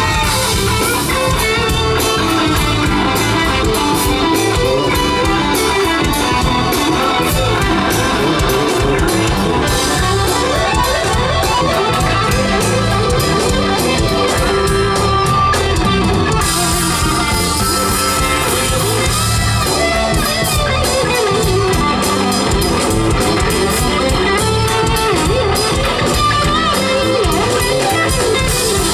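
Live jazz-fusion band playing: an electric guitar solo over a drum kit, electric bass and keyboards.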